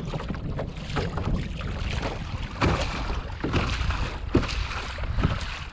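Choppy waves slapping and splashing against a kayak at sea, with wind buffeting the microphone as a steady low rumble.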